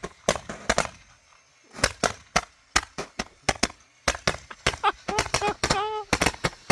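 Roman candle Gatling gun firework firing: a rapid, irregular string of sharp pops as the candles on the spinning rack shoot off their shots, at times several a second.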